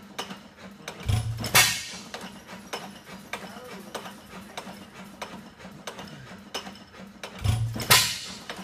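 Antique 4 hp Krueger Atlas hit-and-miss engine running. It fires with a loud bang about a second and a half in and again near the end, and coasts between the firings with regular light mechanical clicking.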